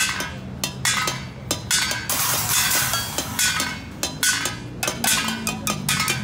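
Street drumming on a makeshift kit of cymbals, metal pots, pans and tins struck with drumsticks: rapid metallic hits, several a second, with the cymbals ringing between them.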